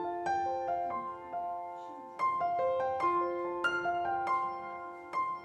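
Background music: a slow, gentle piano melody of single notes, each struck and left to ring.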